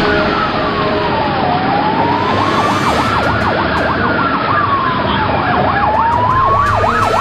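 Emergency vehicle sirens: one wails slowly down and up while a rapid yelp warbles alongside it, twice, over steady background noise.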